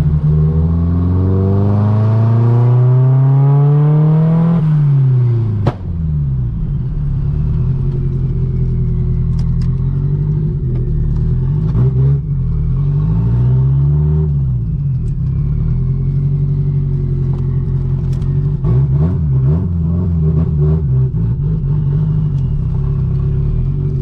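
Turbocharged 1.8T four-cylinder of a Mk2 Golf GTI under way, climbing steadily in revs for about four and a half seconds. The revs drop at a gear change about five seconds in, with a short click. After that the engine cruises at a steadier note, rising and falling a little.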